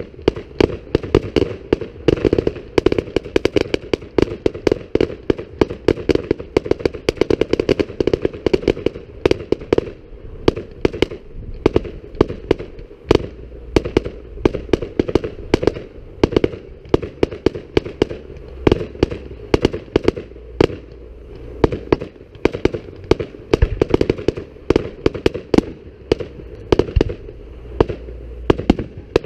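Fireworks display: aerial shells bursting in rapid, continuous succession, a dense run of sharp bangs and crackles with no pause.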